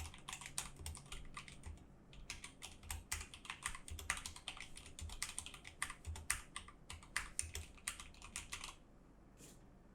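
Typing on an Akko 3084 mechanical keyboard with Akko Pink linear switches (MX Red equivalent): a fast, continuous run of keystroke clacks with a brief pause about two seconds in, stopping a little before the end.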